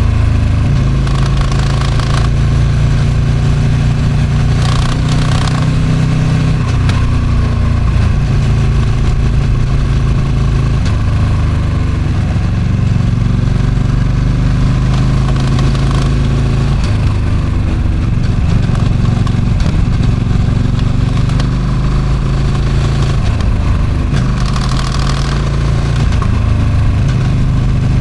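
Ducati Streetfighter V2's 955 cc V-twin on its stock exhaust, running steadily under way with gentle rises and falls in pitch. Wind rushes over the microphone in gusts, about a second in, around five seconds in, and near the end.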